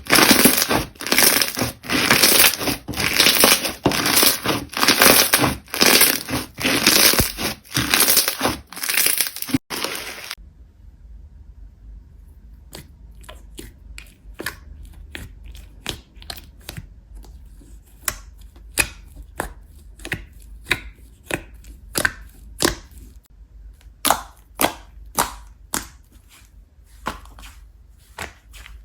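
Slime being worked by hand: loud, rhythmic crackling squishes about twice a second. About ten seconds in it changes abruptly to a quieter run of sharp, irregular pops and clicks.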